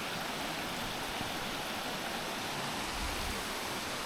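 Creek and small waterfall rushing steadily.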